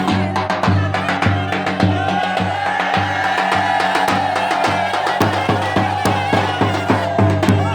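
Turkish halay folk dance music: steady, regular drum beats under a sustained, wavering reedy melody line.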